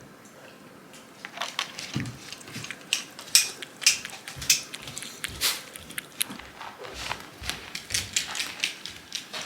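A Shiba Inu chewing, with irregular sharp clicks and crunches.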